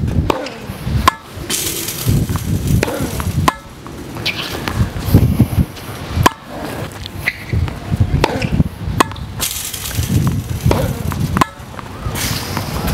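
Tennis balls struck with rackets and bouncing on a hard court during a forehand drill: a string of sharp hits, irregularly spaced a second or a few seconds apart.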